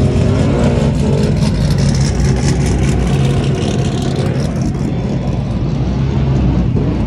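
A burnout car's engine running loud at high revs, held steady with little let-up.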